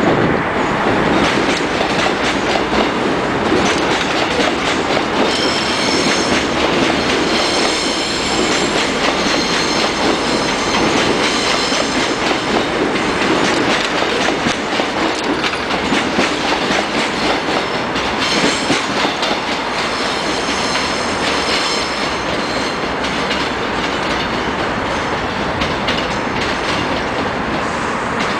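Electric commuter trains running over the tracks below: a steady loud rumble of wheels on rail with clickety-clack over the joints, and a high wheel squeal on the curve that comes in twice, about five seconds in and again past the middle.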